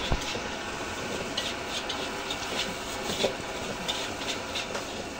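Metal spatula scraping and clinking against a wok as fried rice is stir-fried, in short irregular strokes a few times a second, over a steady hiss. A sharp knock of the spatula on the wok comes right at the start.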